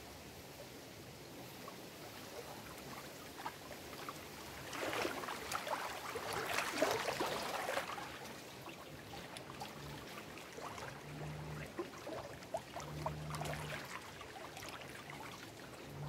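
Small lake waves lapping and splashing against shoreline rocks. The splashing grows stronger about five seconds in for a few seconds, then eases to lighter, scattered splashes.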